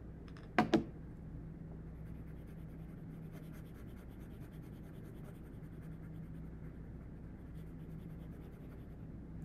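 Pencil shading on a paper worksheet: faint, steady scratching of light-pressure graphite strokes. Two quick sharp knocks just under a second in are the loudest sounds.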